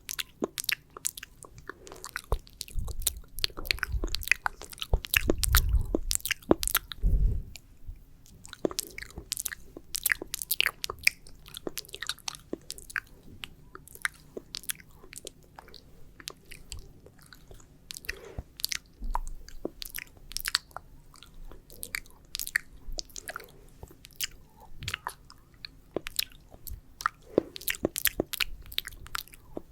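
Close-miked ASMR mouth sounds: sticky, wet saliva clicks and smacks in a quick, irregular stream, with a few low rumbling swells over the first several seconds.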